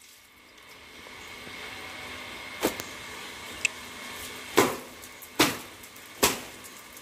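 Wet laundry beaten by hand against a concrete washing floor: a sharp wet slap about two and a half seconds in, then three more less than a second apart near the end. A steady hiss of rain runs underneath.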